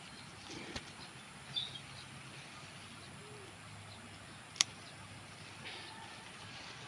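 Scissors snipping okra pods from the plant: quiet handling and a few soft clicks, then one sharp snip about four and a half seconds in. Faint bird calls in the background.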